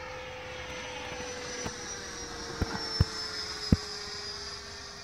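Electric ducted-fan whine of a radio-controlled F-16 model jet in flight: a steady high whine with a lower hum, both sliding slowly lower in pitch. A few sharp clicks come about halfway through.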